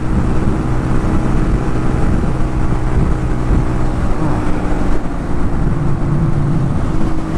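Suzuki VanVan RV125's single-cylinder four-stroke engine running hard at motorway speed, with heavy wind rush and road noise.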